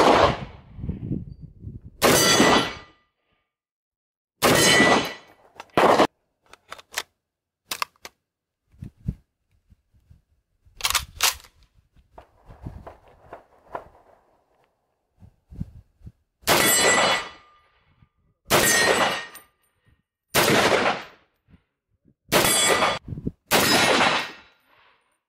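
Imbel FAL 7.62 NATO battle rifle fired as single shots, seven loud reports in all. Two come in the first five seconds, then after a gap with a few sharp clicks and knocks, five more follow about two seconds apart near the end.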